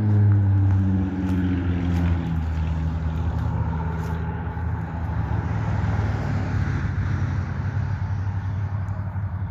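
An engine running, its pitch dropping over the first couple of seconds and then holding steady.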